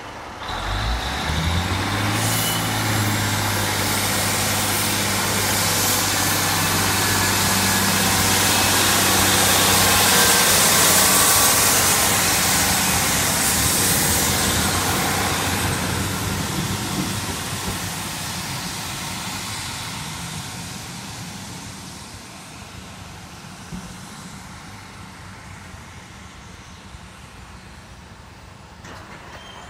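A Class 153 single-car diesel multiple unit pulling away. Its underfloor diesel engine opens up with a rising note about half a second in, then runs steady and loud as the car passes close by. The sound fades gradually as the unit draws away down the line.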